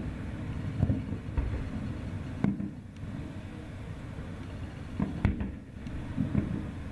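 Aerial fireworks going off in a string of separate bangs, the sharpest about two and a half and five seconds in, over a steady low rumble.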